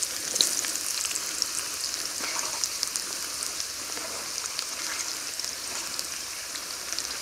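Sliced potatoes and onions sizzling in a frying pan on a small wood-fired hobo stove: a steady frying hiss with scattered small crackles.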